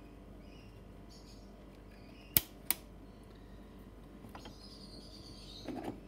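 Two sharp metal clicks about a third of a second apart as the gear shaft is seated into the aluminium transfer case, then a short clatter of metal parts being handled near the end.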